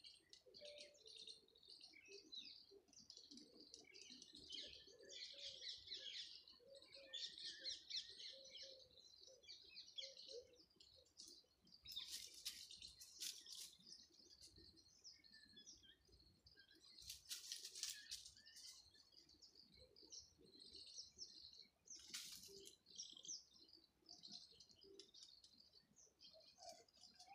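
Faint birdsong: many small birds chirping and twittering, with lower short calls among them. Three brief bursts of hiss-like noise stand out over it.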